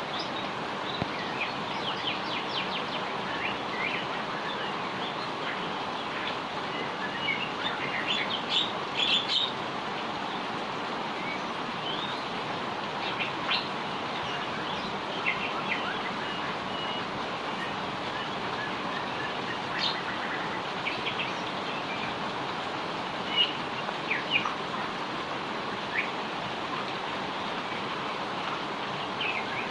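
Rain falling steadily, with small birds chirping in short scattered calls throughout, most densely about eight to nine seconds in.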